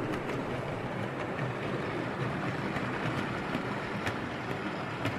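Steady rolling noise of a passing train, with a few faint ticks, from the edited-in Class 47-based diesel sound option laid over the model train.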